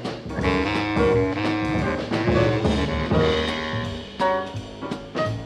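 1964 jazz combo recording (clarinet, trumpets, trombone, piano/vibraphone and drums): the horns play held ensemble lines over the drums, then thin out about four seconds in to sparser, separate struck notes.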